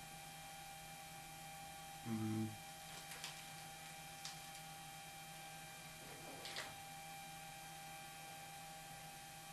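Steady electrical mains hum, with a few faint light clicks as a micrometer is handled against the workpiece, and a short low hum about two seconds in.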